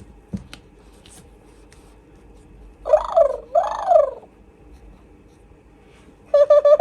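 Interactive toy unicorn playing its electronic sound effects through a small speaker. About three seconds in come two rising-and-falling squeaky calls, and near the end a shorter buzzy call, with a couple of faint clicks in the first second.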